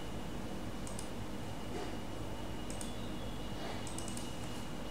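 A few faint, scattered clicks from a computer's mouse and keys over a steady low hum.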